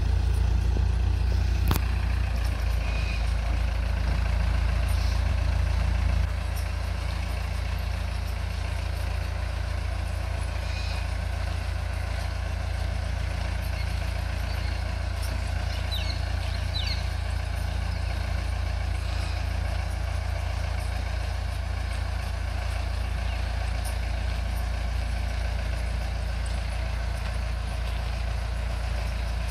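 Diesel engine of a small shunting locomotive running steadily with a deep, low note, a single sharp click about two seconds in, and the engine note dropping a little about six seconds in.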